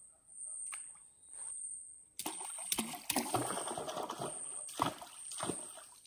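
Water splashing and sloshing at a canoe, with several sharp splashes from about two seconds in until near the end. An insect's high, pulsing buzz repeats about once a second throughout.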